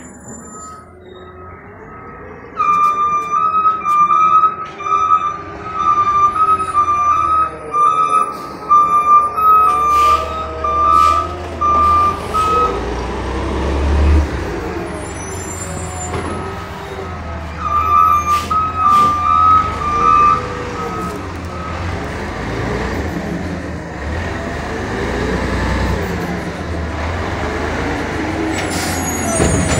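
Side-loading garbage truck's diesel engine running and pulling closer, with a repeated high electronic backup-alarm beep for the first dozen seconds and again briefly later. A few sharp clicks cut through the engine noise.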